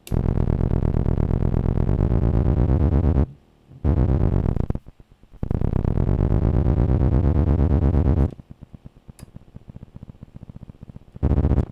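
Distorted electronic buzzing drone from a Lite2Sound BC light-to-sound board, picking up the Tektronix 2225 oscilloscope's CRT trace in an optical feedback loop. It cuts in abruptly, breaks off twice briefly, then from about eight seconds in sinks to a faint rapid ticking before a short loud burst near the end. The breaks and changes in tone come from the trace moving off the screen or under the graticule as the scope controls are turned.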